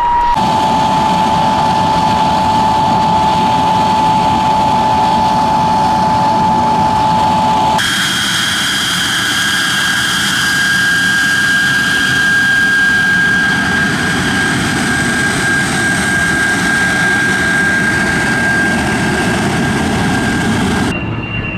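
De Havilland DH.112 Venom's Ghost turbojet running as the jet taxis: a steady high whine over a rumble. The whine is lower for the first several seconds, then jumps abruptly to a higher pitch about eight seconds in.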